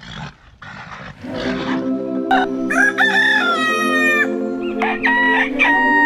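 A rooster crowing twice: one long crow about three seconds in and another near the end, over steady background music.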